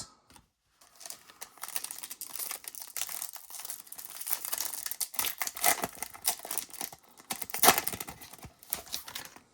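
Plastic wrapper of a trading-card pack crinkling and tearing as it is handled and ripped open, an irregular crackle with a few louder rustles along the way.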